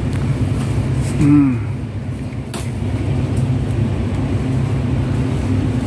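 A steady low mechanical hum, with a short rising-and-falling vocal sound about a second in.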